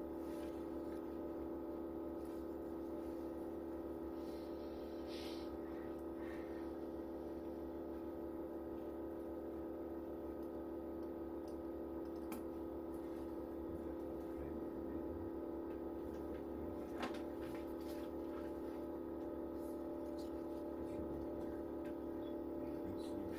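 Steady hum of a machine running in the room, several constant tones held without change. A brief faint rustle about five seconds in and a few light clicks later.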